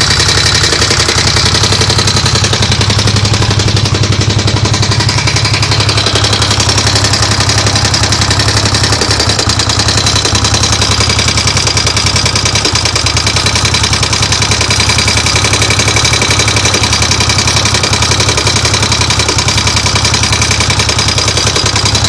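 Suzuki Savage 650's air-cooled single-cylinder four-stroke engine idling steadily, with a little noise the owner can't identify and suspects could be the valves or the timing chain.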